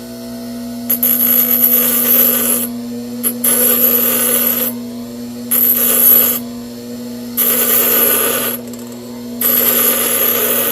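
A running power tool with a steady motor hum, with a metal part pressed against it in five passes of one to two seconds each, grinding material off the part.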